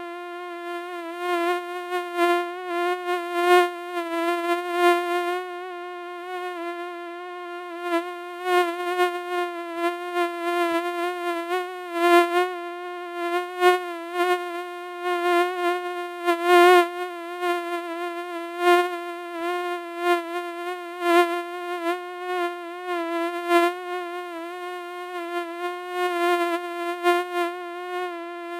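A housefly buzzing: a steady wingbeat hum that wavers slightly in pitch and swells louder and softer at irregular moments as the fly moves about.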